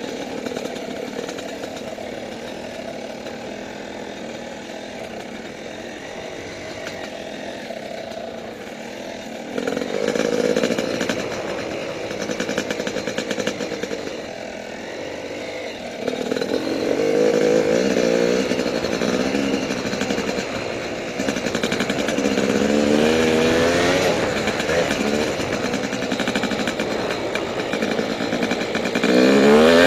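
Yamaha YZ250 dirt bike's single-cylinder two-stroke engine being ridden. It runs steadily at lower revs for the first ten seconds or so, then louder, revving up and falling back several times as the throttle is worked, with a sharp rise in pitch near the end.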